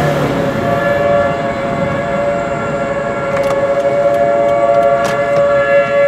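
Outdoor tornado warning sirens sounding a steady chord of several held tones, heard from inside a moving car over road noise.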